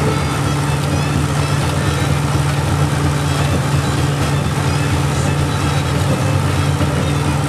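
Threshing mill running steadily as sheaves of corn are fed into it: a continuous, even machine hum.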